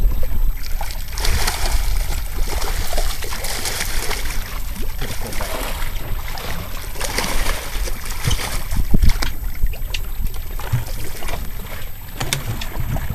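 Water splashing and sloshing as a hooked leopard shark thrashes at the surface alongside a boat, in uneven surges.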